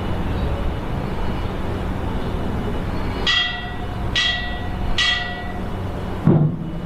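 A temple bell struck three times at an even pace, each ring dying away within about half a second, then near the end a deep drum beat. A steady low hum lies underneath.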